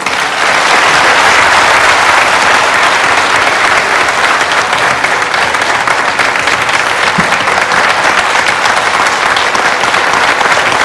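A hall full of people applauding steadily.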